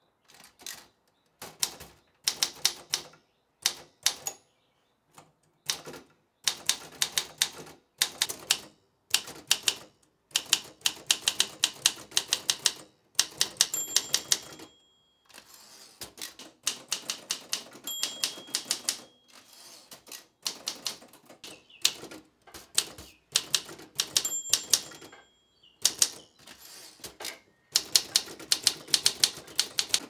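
1950s Olympia manual typewriter being typed on: rapid clacking keystrokes in runs of a second or few, broken by short pauses. A short high ring sounds three times among the runs.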